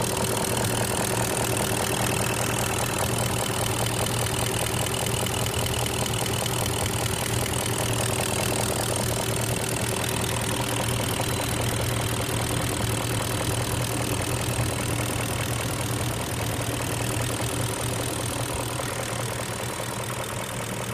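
BMW X5 E53's 4.4-litre M62TU V8 running steadily at idle, warm, with a fast knocking noise running through it. The owner suspects the timing chain guides, VANOS or a vacuum leak; a new revised chain tensioner has not cured it.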